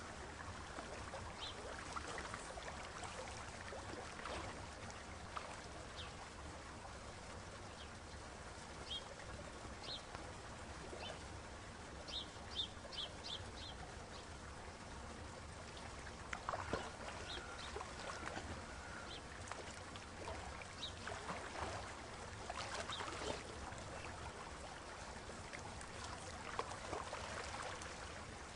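Faint water trickling in a penguin pool, with scattered short bird chirps and calls over it, including a quick run of about five high chirps midway.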